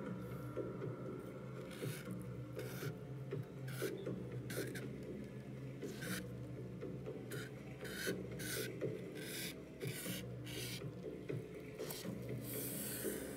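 Charred Palo Santo stick scraping across a canvas in short strokes, about a dozen irregular scratchy rasps, one or two a second.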